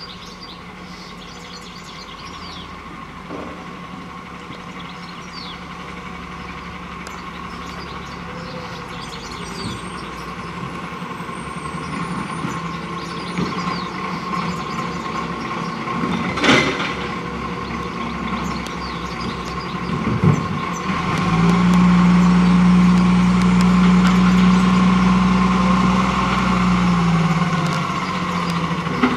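Iveco Acco side-loader garbage truck's diesel engine running as the truck creeps closer, growing louder. About 16 s in there is one sharp air-brake hiss. From about 21 s the engine holds a louder, higher steady note for some seven seconds as it is revved to drive the hydraulic bin-lifting arm, then drops back.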